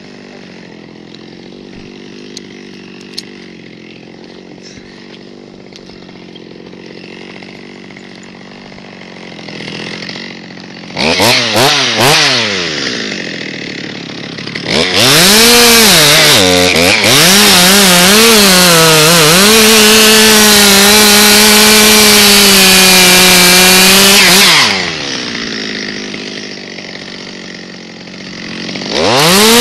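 Stihl MS 200 T top-handle two-stroke chainsaw idling, blipped twice about eleven seconds in, then held at full throttle for about ten seconds as it cuts through the pine trunk, the pitch dipping under load before it steadies. It drops back to idle and revs up again at the end.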